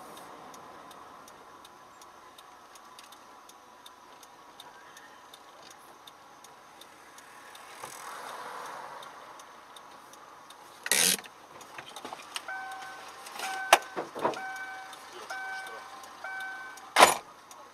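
Car interior heard through a dashcam: a faint steady background with light, evenly spaced ticking, then two loud sudden bangs, one about two-thirds of the way in and one near the end. Between the bangs an electronic warning chime beeps at about two beeps a second.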